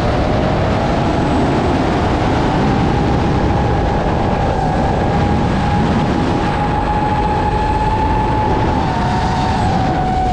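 DJI FPV drone's motors and propellers whining in flight under a heavy rush of air on the top-mounted GoPro's microphone. The whine climbs slowly in pitch, holds, and drops near the end.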